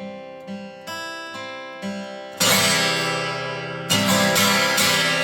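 Martin D-28 dreadnought acoustic guitar, with a spruce top and rosewood back and sides, being played. It starts with picked single notes over a pulsing bass line, then a loud strummed chord a little over two seconds in rings out, and a few more strummed chords follow near the end.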